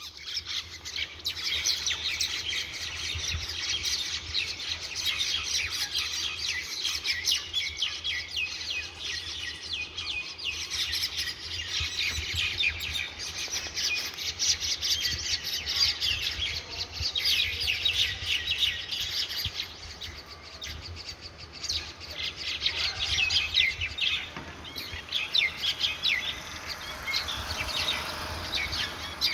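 A group of small birds chirping rapidly and continuously, many short calls overlapping, as the birds squabble and fight.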